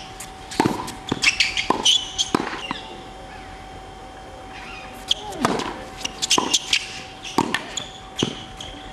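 Tennis ball being struck by rackets and bouncing on a hard court during a baseline rally: sharp pops about once a second, with a pause of about two seconds in the middle.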